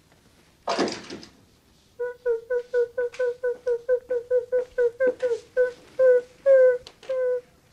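Squeaky wheel on a small pushed table: a quick run of short, same-pitched squeaks, about five a second, slowing to two or three a second in the second half. A brief noise comes about a second in.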